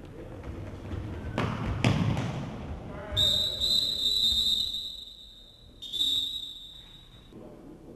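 A few heavy thuds on a sports-hall floor, then a referee's whistle blown in one long steady blast of about two and a half seconds and a second, shorter blast straight after.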